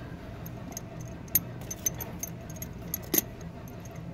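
Metal tools or small metal parts clinking: a handful of light metallic clicks and taps, the sharpest about a third of the way in and again near the end.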